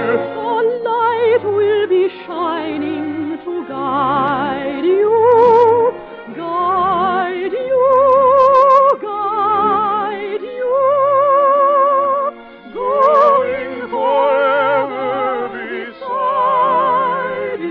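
Operetta song: a solo voice singing long held notes with wide vibrato in operatic style, in phrases broken by brief pauses, over orchestral accompaniment.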